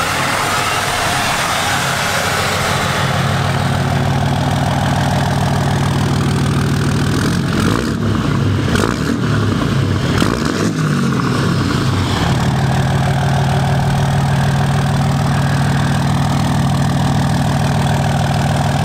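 Deleted and tuned 6.7 Cummins turbo-diesel in a Ram pickup, running through a 5-inch straight pipe. It idles, is revved up and down several times about eight to twelve seconds in, then settles back to a steady idle.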